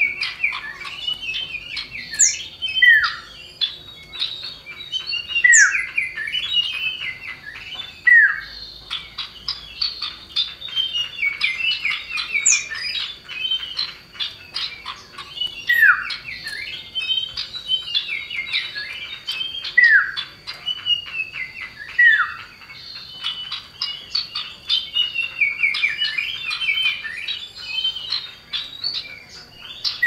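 Common iora (cipoh) calling: a fast run of chattering chirps, broken every few seconds by a loud falling whistle, with now and then a brief sharp high note.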